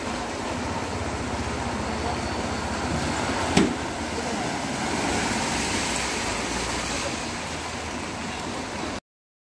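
A car driving through floodwater: a steady rush and wash of water around its wheels that swells as it passes, with a single sharp knock a little after three and a half seconds. The sound cuts off suddenly near the end.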